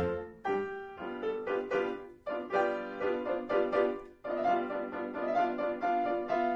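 Piano music: a run of struck notes and chords, with two short breaks about two and four seconds in.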